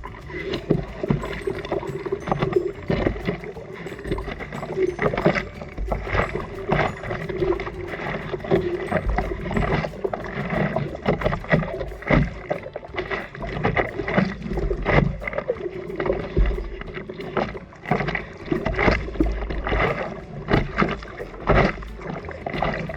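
Water splashing and sloshing in irregular gushes, with low wind rumble on the microphone, as heard from a camera out in the surf.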